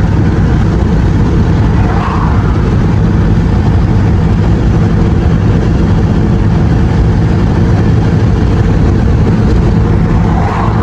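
A moving truck's steady engine and road noise, a loud continuous low rumble.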